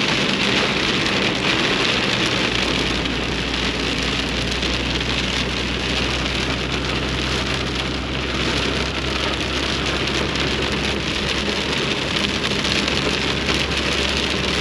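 Heavy rain beating on the windshield and roof, heard from inside the cab of a moving truck, with the low steady drone of the truck running underneath.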